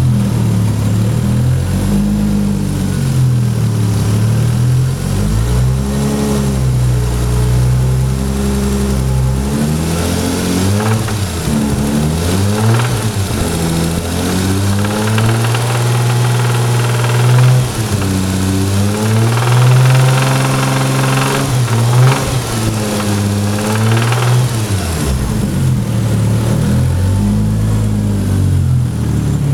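Toyota Supra engine running and being revved repeatedly, its pitch rising and falling, with a rod knock: the sign of a worn connecting-rod bearing.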